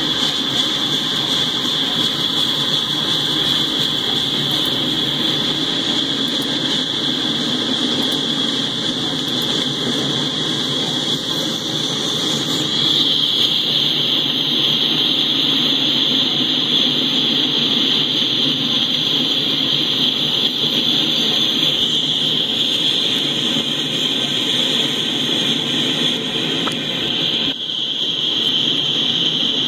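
Freight cars rolling past on the rails: a steady low rumble of wheels on track with a constant high-pitched hiss over it, heard through a screen's speaker playing a live train-cam stream.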